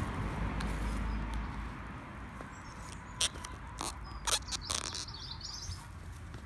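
Feet shifting in and out of high-heeled pumps on dry grass: a few short rustles and clicks in the second half. A bird chirps briefly in the background, and a low rumble fills the first two seconds.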